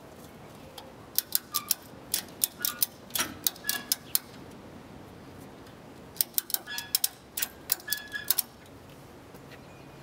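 Motorcycle ratchet tie-down strap being cranked tight, its ratchet buckle clicking in two quick runs of about four clicks a second, the first starting about a second in and the second about six seconds in.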